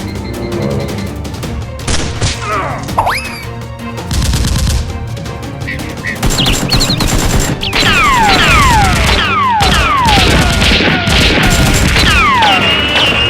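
Gunfire sound effects over music: rapid shots that grow denser about six seconds in, with many falling whistles overlapping one another.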